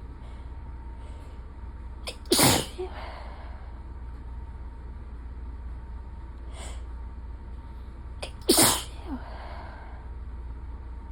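A person sneezes loudly twice, about six seconds apart, each sneeze with a quick sharp intake just before it. A brief, softer breath sound falls between them, over a steady low hum.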